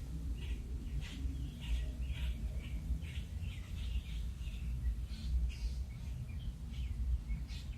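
Several small birds chirping in short, scattered calls over a steady low rumble of wind buffeting the microphone.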